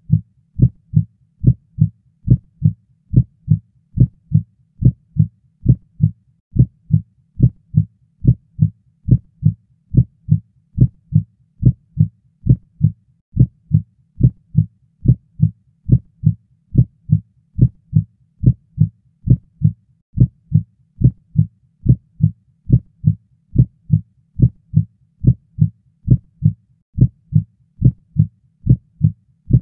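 Heartbeat sound effect: a steady, even run of short low thuds, about two a second.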